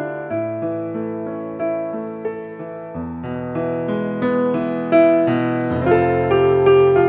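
Background piano music: slow chords over a bass note that changes every second or two.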